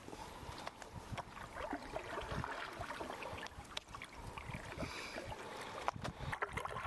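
Creek water splashing and lapping, with scattered small knocks and clicks.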